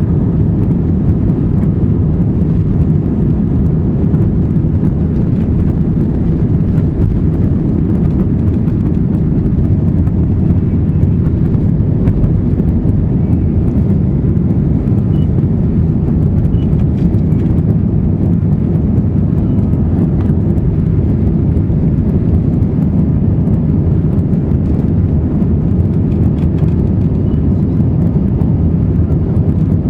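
Steady low rumble inside the cabin of an Airbus A320-232 in flight: noise from its IAE V2500 engines mixed with airflow over the fuselage, holding even throughout.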